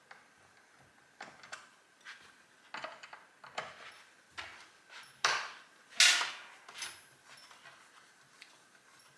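Hand work on a chainsaw: a string of light clicks and knocks of plastic and metal parts being handled, with two louder scrapes about five and six seconds in.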